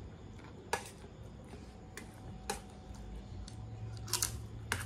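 A metal spoon clicking and scraping against a metal food tray: a few sharp separate clicks, with two close together about four seconds in.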